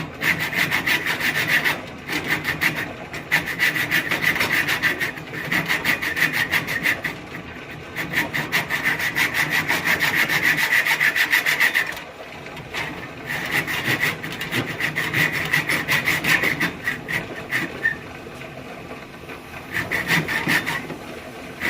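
A saw cutting through an old wooden axe handle, a rapid rasping in long spells broken by a few short pauses.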